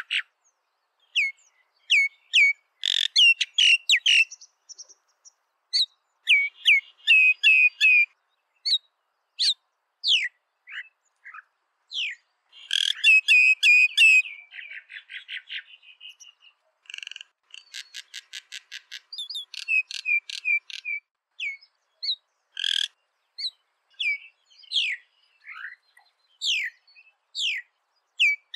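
Common myna singing: a varied string of whistles, sharp falling notes and harsh chatters, with quick rapid-fire series of repeated notes, broken by short pauses.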